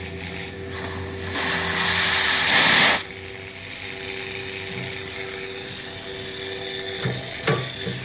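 Blowdown valve on a small steam boiler opened: steam and hot water hiss out for about two seconds, growing louder, then cut off suddenly as the valve is shut. A low, steady background follows, with a couple of faint knocks near the end.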